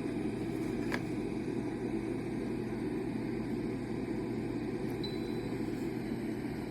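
Steady whir of a small cool-mist humidifier running, with a low hum beneath it. A faint tick comes about a second in.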